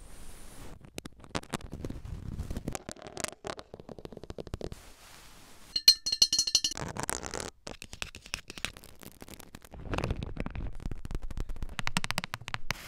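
Close-miked ASMR triggers in quick succession, mostly rapid tapping and scratching. About six seconds in a drinking glass clinks and rings briefly. Near the end fingernails tap quickly on a hard plastic lid.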